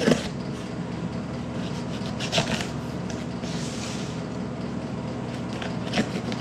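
Cardboard shipping box being handled and its packing tape slit with a knife: a few short knocks and scrapes, with a rasping stretch about halfway through, over a steady low hum.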